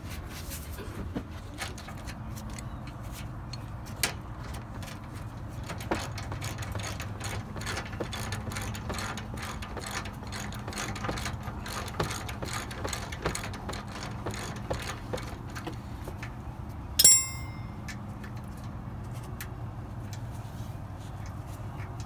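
Hand ratchet wrench clicking in short runs as it works the rear shock absorber bolts, over a steady low hum. One sharp, ringing metallic clank about three-quarters of the way through.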